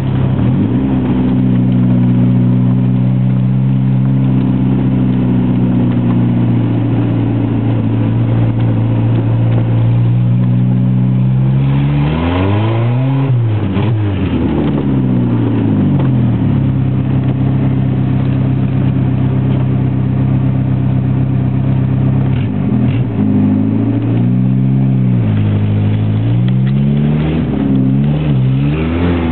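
Loud engine drone of a 1993 Volkswagen Golf with a broken exhaust pipe, heard from inside the car while driving. The engine note holds steady, then rises and falls several times as it is revved and shifted, most sharply about twelve to fourteen seconds in and again over the last few seconds.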